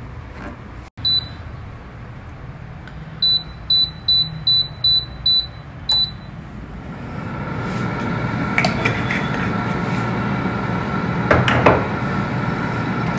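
Solara air fryer's touch control panel beeping as its time and temperature are set: a single high beep, then a quick run of about seven beeps and one more. The fryer then starts and its fan runs with a steady hum and a faint whine, with a few light clicks.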